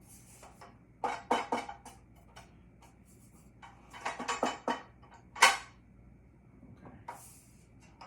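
Metal table saw parts clanking and clicking as they are handled and fitted: a quick run of knocks about a second in, another run about four seconds in, then one louder knock.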